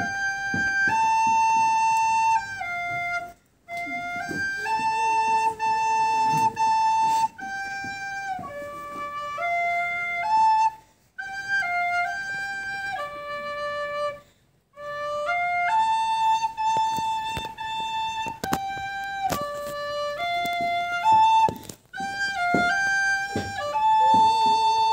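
A small end-blown wooden flute plays a solo melody that moves in steps from note to note, in several short phrases with brief pauses for breath between them.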